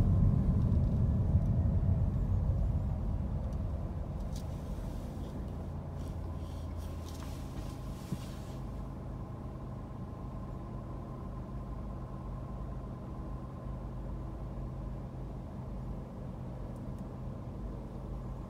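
Car cabin noise as the car slows to a stop in traffic: low engine and road rumble fades over the first few seconds, then settles into a steady low idling hum. A soft hiss comes and goes several seconds in.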